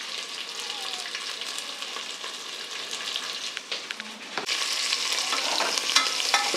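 Onion, garlic and curry leaves frying in hot oil with mustard seeds, cumin and dried chilli in a pressure cooker: a steady sizzle with a few sharp clicks as the tempering is stirred. The sizzle grows louder about four and a half seconds in.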